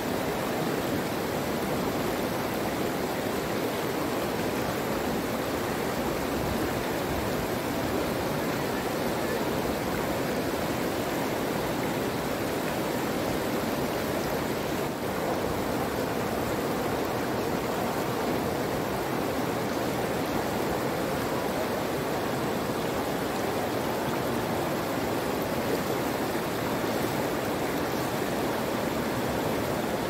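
Running water rushing steadily and evenly, with no breaks or single splashes.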